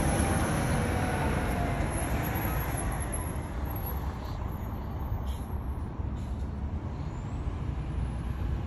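Street traffic noise: a passing vehicle fades away over the first few seconds, leaving a steady low rumble of road traffic.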